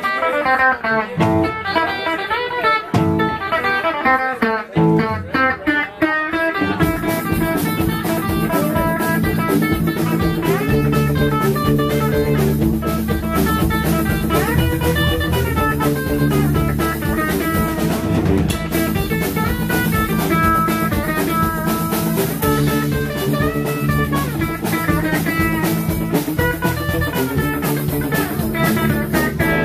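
Instrumental surf rock played live on Fender Jaguar electric guitars and drums. A guitar picks a sparse, choppy figure with short gaps, and about seven seconds in the full band with drums comes in and plays a steady, driving groove.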